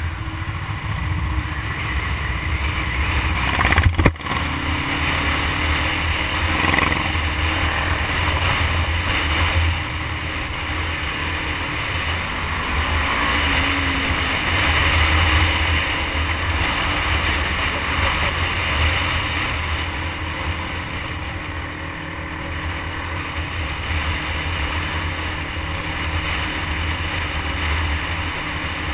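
Motorcycle riding at road speed, heard from its onboard camera: a steady low engine drone mixed with wind rush on the microphone. There is one sharp knock about four seconds in.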